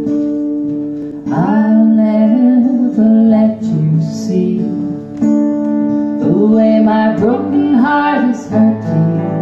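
Acoustic guitars strumming a slow accompaniment. Sung vocals come in about a second in and carry on over the guitars.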